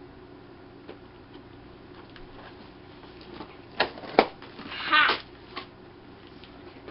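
Cardboard packaging being handled and pulled at: two sharp snaps about four seconds in, then a short scrape or tear of about half a second, followed by a small click.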